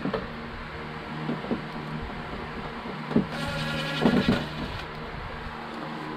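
A cordless screwdriver whirs for about a second and a half, starting a little past the middle, as bracket screws are driven out. There are a few clicks and knocks around it, over a steady low hum.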